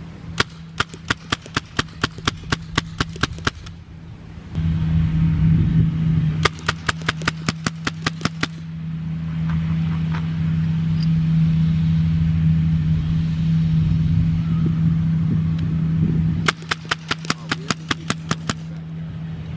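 Paintball guns firing in three rapid strings of shots, several a second. A steady low hum comes up about four seconds in and drops away when the last string starts.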